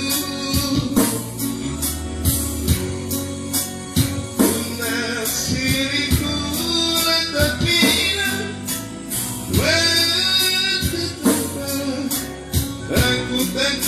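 A song playing: singing over a steady percussion beat.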